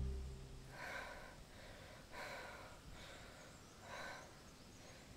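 A young woman breathing heavily through her mouth, out of breath: several audible breaths about a second and a half apart.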